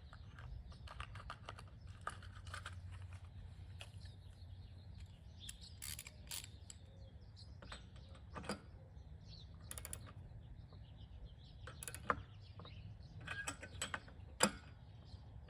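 Faint, scattered metal clicks and taps of a spark plug socket on a Honda lawnmower's new spark plug as it is turned in by hand.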